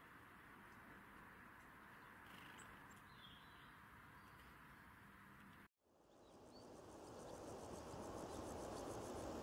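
Very faint outdoor ambience with a few faint, short, high bird chirps two to three seconds in. The sound drops out for an instant at a cut, then returns as a soft, even hiss that slowly grows louder.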